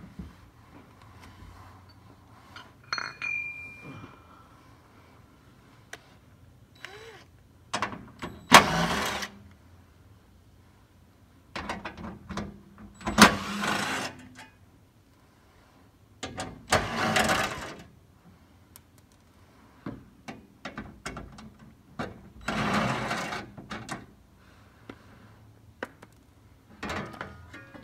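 Intermittent clatter of tools being handled: scattered knocks and clicks, with four rough bursts about a second long each.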